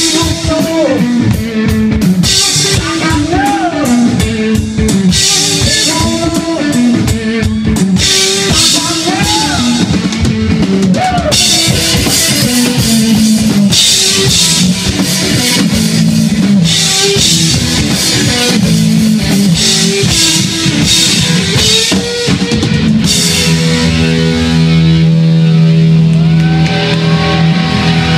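Live rock music from a band: loud electric guitar over a busy drum kit with crashing cymbals. About 23 seconds in, the drums drop out and held guitar notes ring on.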